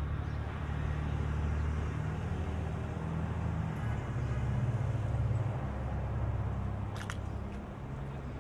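City street traffic: a steady low rumble of running vehicle engines with a hiss of street noise over it, and one short sharp click about seven seconds in.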